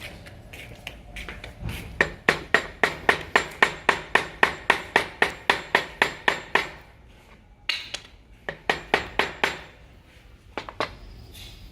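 Hammer tapping on wood in a fast, even run of about five blows a second, then a lone blow and two shorter runs: wooden dowels being driven into a joint.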